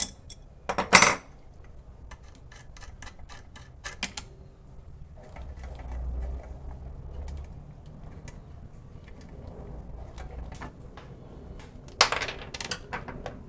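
Clicks and metallic clatter from parts of a range hood's blower being handled, with a louder clatter about a second in and again near the end.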